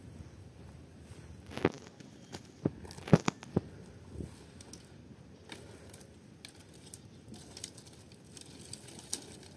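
Dry sticks or firewood snapping and crunching as they are handled: irregular sharp cracks. The loudest cluster falls between about one and a half and three and a half seconds in, and there is a lone crack near the end.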